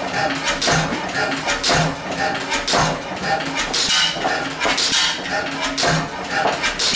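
1911 Deutz E3 stationary gas engine running slowly, with a rhythmic metallic clatter of clicks several times a second and a low beat about once a second.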